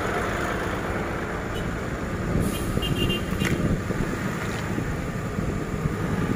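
Hino 500 truck's diesel engine running as the truck rolls slowly along, with road noise and a short high hiss about halfway through.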